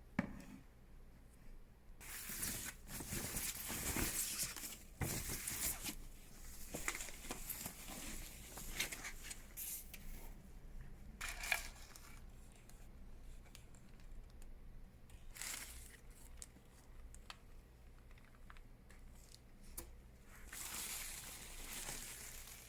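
Packaging being handled and pulled off the parts of a cordless stick vacuum during unboxing: irregular bursts of rustling and tearing, with quieter pauses between.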